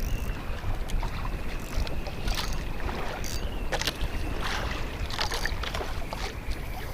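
Strong wind buffeting the microphone on a small open boat at sea, a steady rumble, with a few short clicks now and then.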